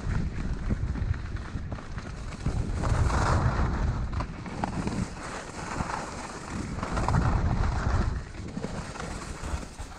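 Skis scraping and hissing over hard-packed snow through a run of turns, swelling three times, with wind buffeting the action camera's microphone as a steady low rumble.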